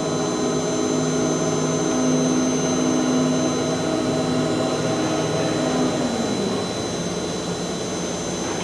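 Hoist drive of a 15-ton stacker crane lifting its load carriage: a steady electric motor hum and whine. The whine drops in pitch and fades about six seconds in as the hoist slows, leaving a lower hum.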